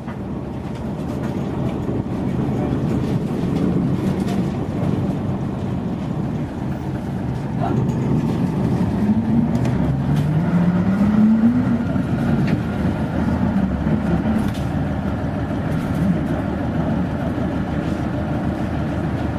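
1989 Mitsubishi P-MP218M bus's diesel engine heard from inside the cabin as the bus pulls away, growing louder at first; about halfway through the engine note rises steadily as it accelerates in gear, then drops at a gear change, with a few rattles and clicks from the body.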